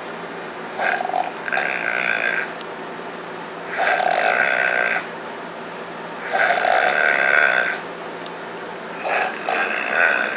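A man snoring: four snores about two and a half seconds apart, some breaking into two parts.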